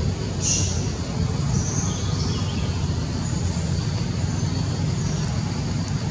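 Steady low outdoor rumble with a few faint, short high-pitched chirps over it, the clearest about half a second in.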